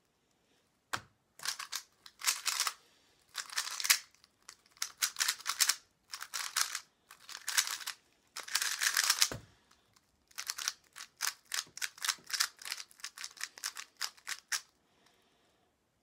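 A GuoGuan Yuexiao Pro speedcube being turned very fast during a Rubik's cube speedsolve: bursts of rapid plastic clicking and clacking as the layers turn, broken by short pauses. Two sharp knocks sound about a second in and again around nine seconds.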